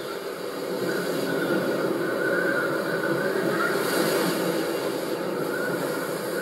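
A steady rumbling noise that swells slightly near the middle, with a faint wavering tone above it.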